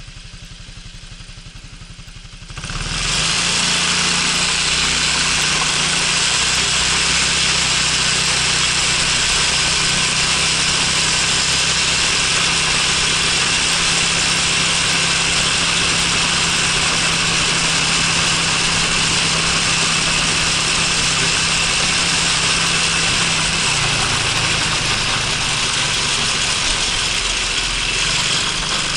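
Honda Freeway 250 cc scooter engine idling briefly, then riding on steadily. About two and a half seconds in, a loud, even rush of wind on the microphone sets in over the engine and stays to the end.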